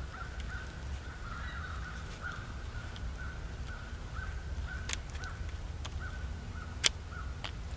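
An animal calling faintly over and over, short notes of one pitch a few times a second, over a low rumble. A sharp click near the end.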